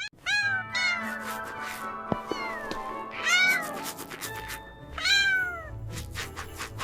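Cartoon kitten meowing: about six short, high calls, each falling in pitch, over soft background music with light clicks.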